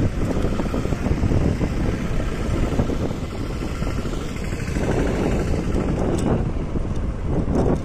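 Motorcycle riding at road speed: steady engine and road noise mixed with wind buffeting the microphone.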